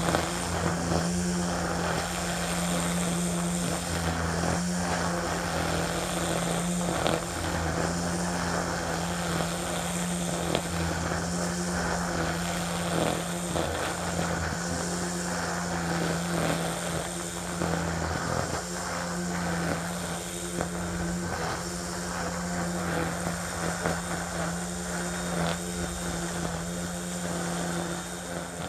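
Ryobi 40V battery-powered string trimmer running at a steady speed, its line whipping through tall centipede grass with many small slapping ticks.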